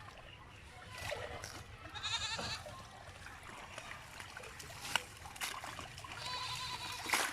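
An animal bleating twice in a wavering call, about two seconds in and again near the end, with a few sharp splashes of water in between and at the close.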